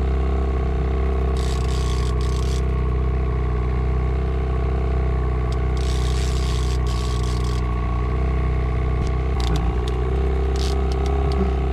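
Boat motor running steadily at slow trolling speed, a low even hum. Two raspy bursts of about a second each come near the start and about halfway through, and a few sharp clicks near the end.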